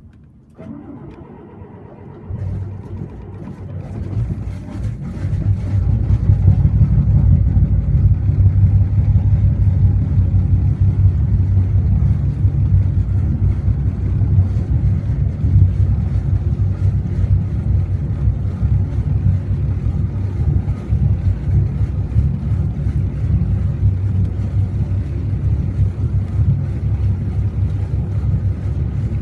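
Volvo Penta TAMD122P-B six-cylinder turbo-diesel marine engine starting from really cold: it cranks, catches about two seconds in, builds up over the next few seconds and then runs steadily.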